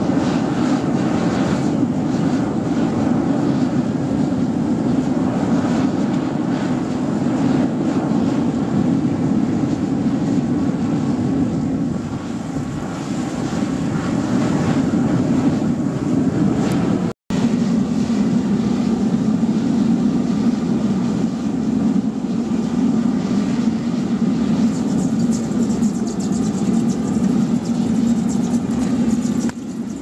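Waste-oil burner firing into a drum furnace, a steady, loud, low-pitched flame noise as it melts scrap aluminium. The sound breaks off for an instant a little past the middle.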